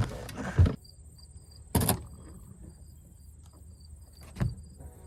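Insects chirping in a quick train of short high notes over a steady high hum, broken by a few loud knocks: a cluster at the start, one about two seconds in and another near the end.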